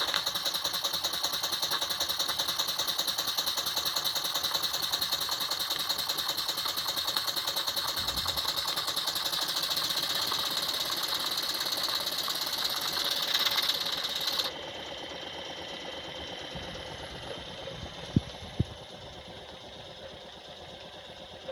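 Jensen Model 50 live-steam model engine running at governed speed, a fast, even exhaust beat. About fourteen seconds in the sound drops suddenly to a quieter level and runs on, with two sharp clicks near the end.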